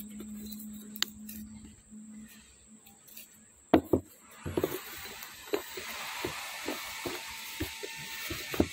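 Steel gear-pump parts (gear shafts and housing) being handled and set on a wooden bench. There are two sharp knocks about four seconds in, then a string of lighter clunks every fraction of a second over a hiss that comes up about halfway.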